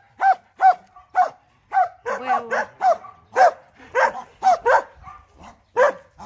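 Several dogs barking repeatedly, about two barks a second, with more barks overlapping from about two seconds in.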